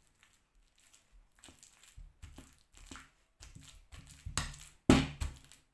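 Black plastic potato masher mashing overripe bananas in a bowl: a run of uneven pressing strokes, the loudest about five seconds in.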